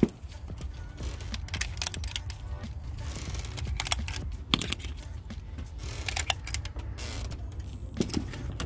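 Scattered sharp metal clicks and clinks as a spark plug socket on an extension and loose spark plugs are handled and set down on a mat.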